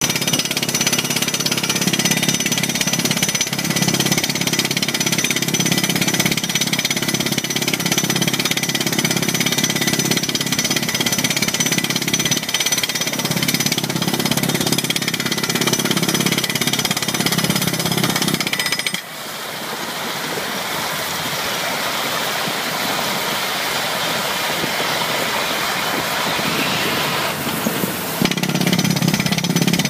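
Crawler-mounted rock drill rig hammering a pile hole into rocky ground, a fast, loud percussive clatter. The hammering stops abruptly about two-thirds of the way through, leaving a steadier mechanical noise, and starts again just before the end.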